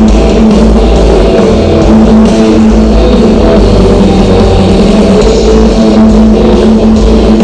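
Rock band sound check with drums, electric guitars and bass playing continuously through the concert PA, heard loud from the street outside the venue.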